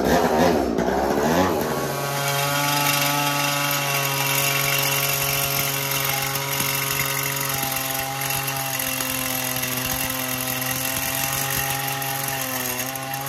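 Echo CS3000 two-stroke chainsaw engine revving up, then holding a steady high-speed note as it drives a VersaSaw reciprocating-saw attachment. The attachment's long metal-cutting blade is sawing through steel.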